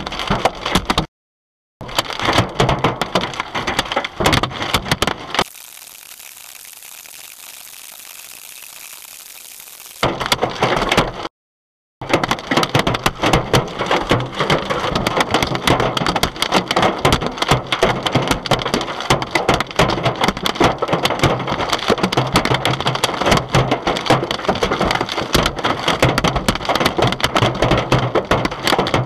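Large hailstones pelting a car's roof, windshield and rear window in a dense, rapid clatter of hard impacts, with the glass cracking under them. The clatter drops out twice for under a second, and for about five seconds early on it gives way to a quieter steady hiss.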